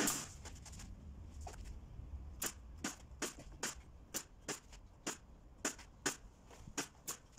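Pneumatic nail gun firing again and again, driving nails through a thin plywood door skin into the wooden frame beneath. It gives a run of sharp, short shots, about two a second.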